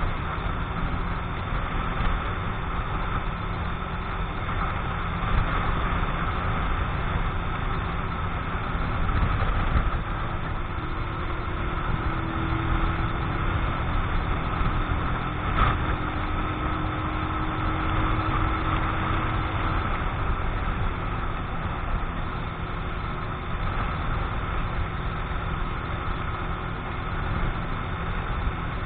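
Keeway X-Light 125 motorcycle engine running steadily while riding, with wind rumbling over the microphone. The engine is new and still being run in.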